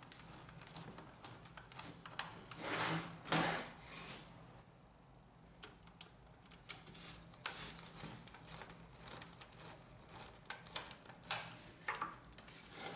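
Small screwdriver turning screws into the plastic side frame of a Lexmark laser-printer drum unit: faint scraping and ticking strokes with light handling of the plastic housing, and two louder scrapes about three seconds in.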